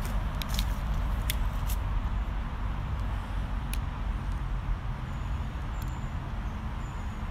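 Outdoor town ambience: a steady low rumble of road traffic, with a few sharp clicks in the first two seconds and another near the middle, and faint short high chirps in the second half.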